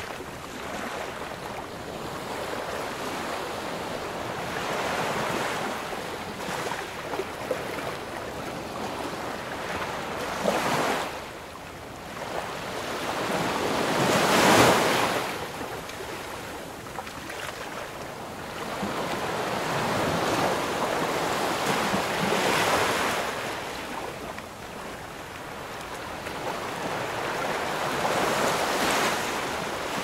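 Ocean surf: a continuous rush of waves breaking and washing up on the shore, swelling and fading with each wave. Four or so swells come through, the loudest about halfway.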